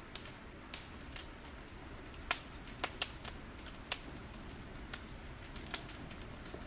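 Fire crackling: irregular sharp pops and snaps, the loudest about two seconds in, over a steady low rumble.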